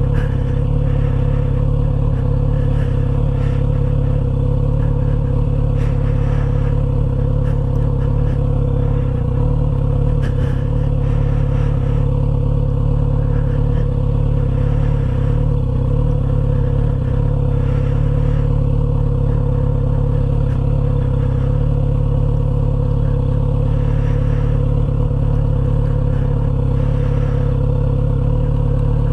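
Motorcycle engine running at steady low revs, with no revving up or down, and faint intermittent clicks over it.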